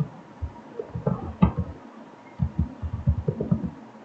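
Computer keyboard being typed on: an irregular series of soft, low key thumps in short runs.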